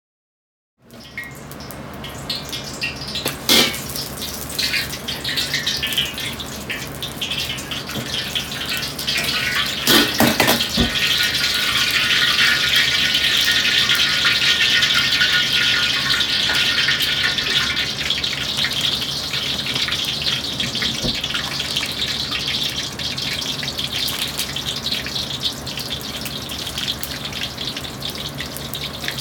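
Chicken pieces deep-frying in hot oil in a wok over a gas wok burner, with a steady sizzle and bubbling that starts about a second in, under a low burner hum. A couple of sharp knocks stand out, one around a third of the way in.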